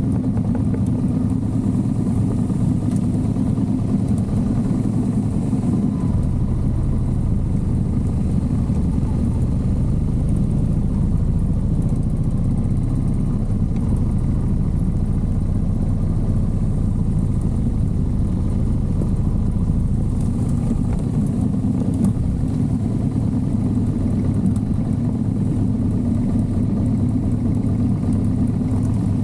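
Motorcycle engine running steadily under way, a continuous low drone that shifts slightly in pitch a few times.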